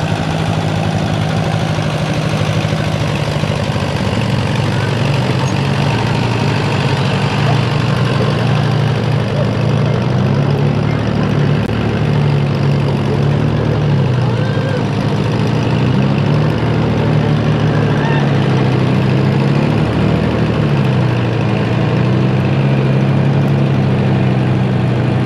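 Vehicle engines running steadily at low speed, a farm tractor and a utility vehicle creeping along together; the engine pitch dips and rises a few times around the middle.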